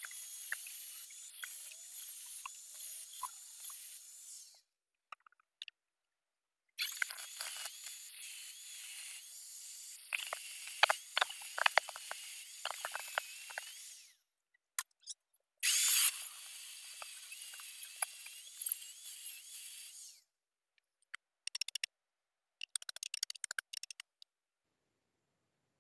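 Handheld angle grinder cutting into the steel body of a motorcycle rear shock absorber, throwing sparks. It runs in three stretches of several seconds each with short pauses between, and a few short clicks and rattles follow near the end.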